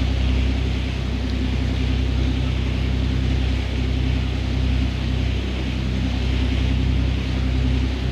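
Fishing boat's engine running steadily, a constant low hum with a steady hiss above it.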